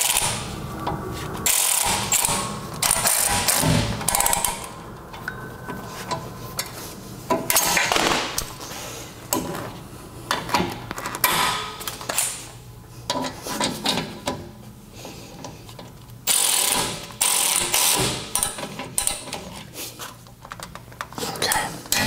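Hand ratchet clicking in several separate bursts as the brake caliper bolts are tightened, with clinks of metal tools between bursts.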